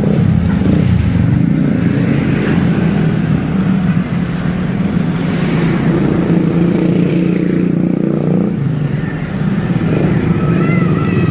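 Large bus engine running close by, a steady low rumble with road traffic around it.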